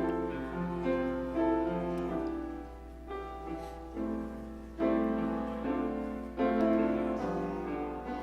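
Piano playing an instrumental passage of a worship song, chords changing about every second, over a steady low electrical hum.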